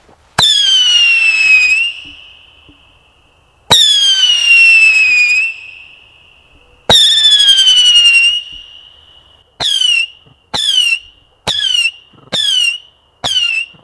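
A 'Scream' roman candle firing eight shots in turn. Each shot is a sharp pop followed by a loud whistle that falls in pitch and then holds steady. The first three whistles last over a second, spaced about three seconds apart; the last five are short and come about one a second.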